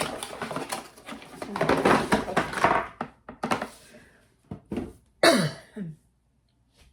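Rustling and clattering of packaged items being handled and rummaged through, then a few separate knocks and a short sound that falls sharply in pitch about five seconds in.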